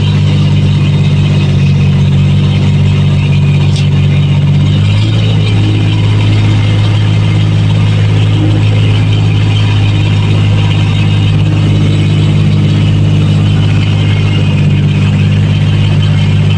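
Boat engine running steadily with a low, even hum; its note shifts slightly about five seconds in.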